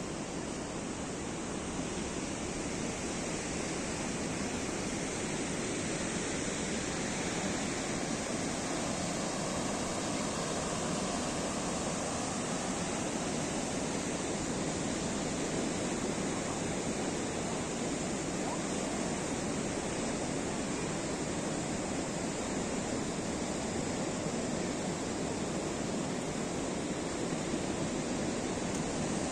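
Ocean surf breaking, a steady rushing noise with no distinct crashes standing out.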